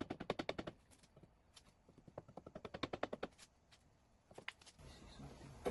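Hand ratchet wrench clicking in two quick runs of rapid, even clicks as it works bolts on a rotary engine's housings, followed by a few single clicks.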